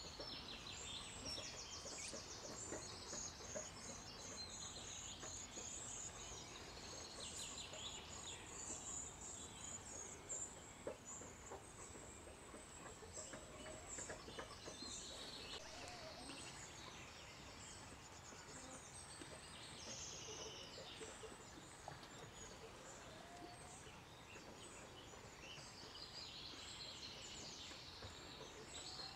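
Eurasian nuthatch calling: faint, high, repeated notes and rapid trills. The title takes these for alarm or distress calls at a cat.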